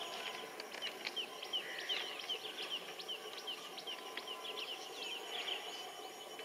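Birds chirping: a quick run of short, high, repeated chirps, several a second, over an even outdoor background noise. A thin steady high tone comes in near the end.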